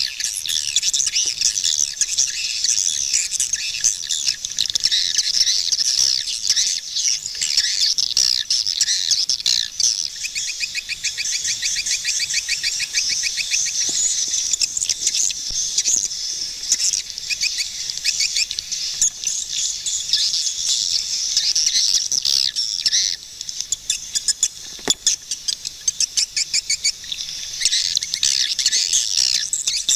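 Swiftlets chirping and twittering continuously in a dense, high-pitched chorus, with a fast trill about ten to fourteen seconds in.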